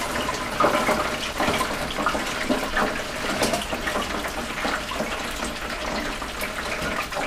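Hot peanut oil in a Masterbuilt Butterball electric turkey fryer sizzling and bubbling around a whole deep-fried chicken as it is lifted out, a steady hiss with scattered crackles and pops.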